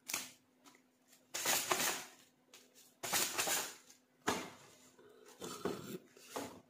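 Paper banknotes rustling and the plastic ATM cash cassette clattering as stacks of notes are loaded into it by hand, in several short scraping bursts with a sharper knock about four seconds in.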